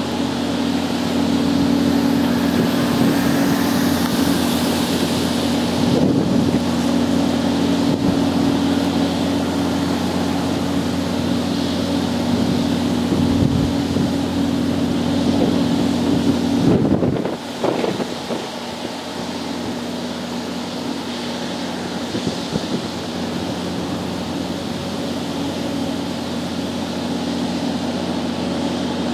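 Steady low mechanical hum with wind noise on the microphone; a short rumble comes about two-thirds of the way through, after which the level drops slightly.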